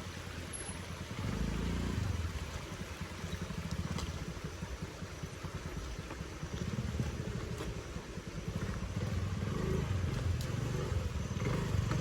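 Motor scooter engine running at low revs, a steady low rumble that swells and eases.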